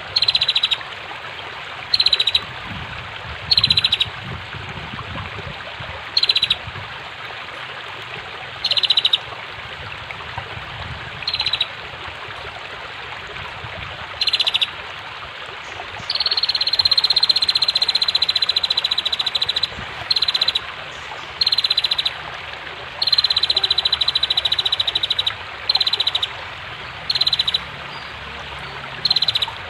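Female prenjak (prinia) calling a rapid rattling trill in short bursts every two seconds or so, two of them drawn out for a few seconds, over steadily rushing flowing water.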